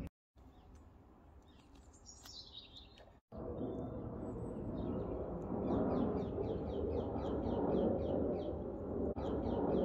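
Outdoor ambience with birdsong: a single falling chirp about two seconds in, then, after an abrupt cut, steady background noise with a bird repeating short falling notes about three times a second.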